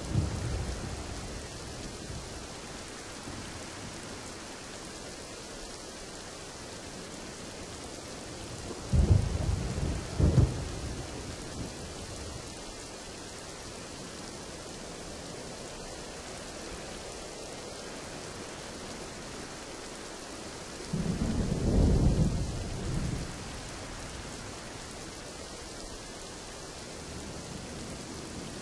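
Steady heavy rain with rolls of thunder: a rumble at the very start, two sharp claps close together about nine seconds in, and a longer deep rumble a little past twenty seconds.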